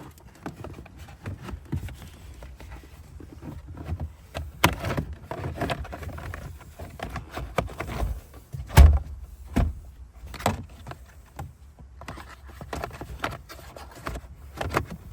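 Hand work on car parts: irregular clicks, taps and knocks of pieces being handled and fitted, with one heavier thump about nine seconds in.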